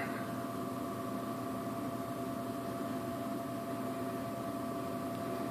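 Steady mechanical hum made of a few held tones over an even hiss, unchanging throughout.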